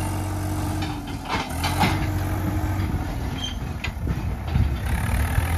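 Swaraj 855 tractor's three-cylinder diesel engine running steadily under load as it pulls two loaded grain trolleys, with a few short clanks from the trolleys.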